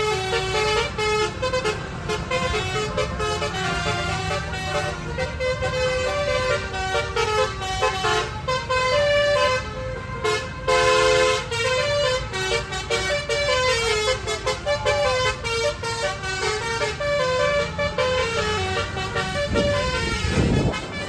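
Bus 'telolet' multi-tone basuri horn playing a quick tune of stepped notes, sounded over and over, over the low running of the bus engine.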